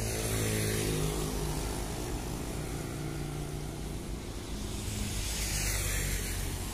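Road traffic passing: motorcycles and cars going by with a steady low engine drone. Tyre noise swells twice, about half a second in and again around five to six seconds in, as vehicles pass close.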